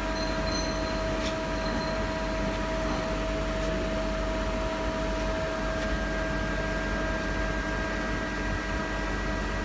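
Steady hum of a CNC turning centre with several faint, steady whining tones, as its tool turret is jogged to bring a U-drill toward the workpiece.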